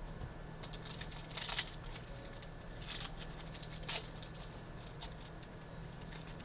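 Trading cards and pack wrappers being handled: a run of short, sharp rustles and flicks, two of them louder, about a second and a half and four seconds in, over a steady low hum.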